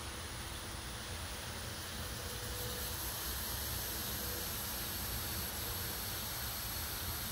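Steady outdoor background noise: a low rumble under an even hiss, with the hiss growing a little brighter about two and a half seconds in, and no distinct calls or knocks.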